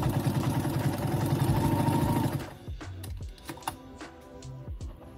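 New Home 690 heavy-duty sewing machine running at speed, straight-stitching through leather with a fast, even needle rhythm that stops about halfway through. Background music continues after it stops.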